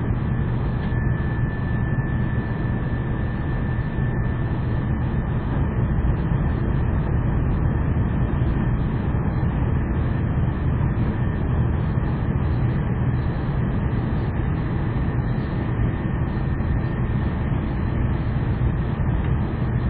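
Cabin noise of an N700 series Shinkansen bullet train running at speed: a steady deep rumble and rush, with a faint high whine plainest in the first few seconds.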